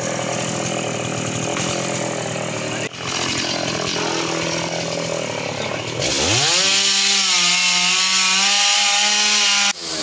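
A chainsaw runs at a low, uneven speed. About six seconds in it revs up and holds at full throttle, louder and higher, then cuts off suddenly near the end.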